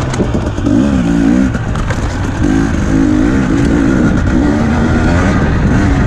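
Enduro dirt bike engine, heard from on the bike, revving up and down over and over as the rider works the throttle.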